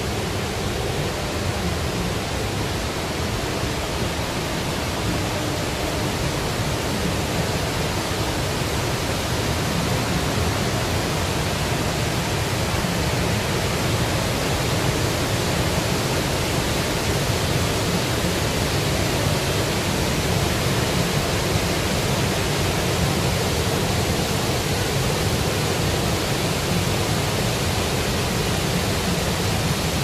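Bou Sra waterfall pouring, its river running high and muddy: a steady, dense rush of water with a deep low end, growing a little louder partway through.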